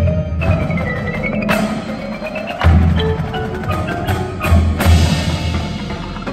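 Indoor percussion ensemble playing live: mallet keyboards such as marimbas and vibraphones, with sliding pitched tones over a low bass. Sharp accented hits land about five times across the phrase.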